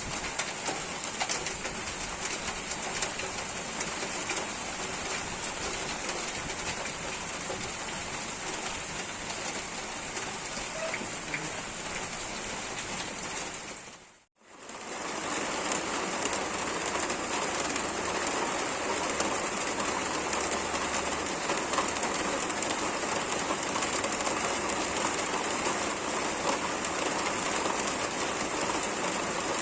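Steady rain falling and pattering on surfaces. About halfway through it dips briefly to silence and comes back a little louder.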